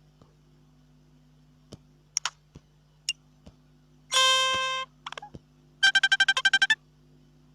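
Short electronic app sound effects played one after another: a few quick chirps and clicks, a held buzzy tone lasting under a second, then a rapid run of about ten beeps.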